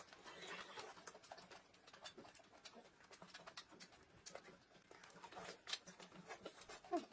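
Faint, irregular chewing and mouth sounds of people eating: many small wet clicks and smacks.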